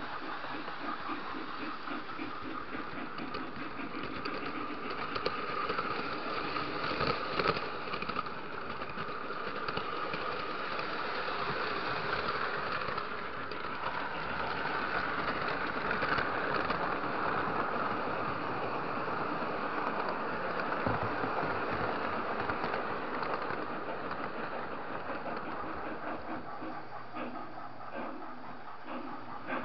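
Lionel model train running along its track, heard from on board: a steady rolling rumble and motor whir with occasional clicks, swelling and easing a little as it goes.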